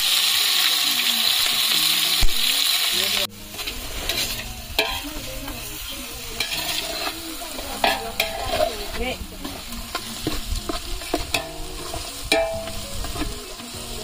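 Ginger-garlic paste and green chillies frying with whole spices in hot oil in a large metal pot, a loud steady sizzle. About three seconds in the sizzle drops abruptly and goes on more quietly, with a metal spoon stirring and scraping against the pot in short clicks.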